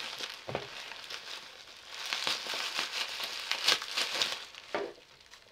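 Bubble wrap and plastic packaging being pulled apart by hand, crinkling with irregular crackles.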